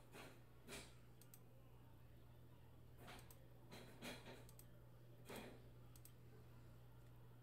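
Near silence with a few faint, scattered clicks from a computer keyboard and mouse, over a low steady hum.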